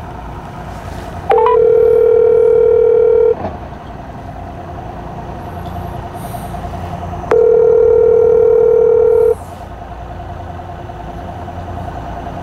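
Telephone ringback tone through a phone's speaker while a call rings unanswered: two long steady tones of about two seconds each, six seconds apart.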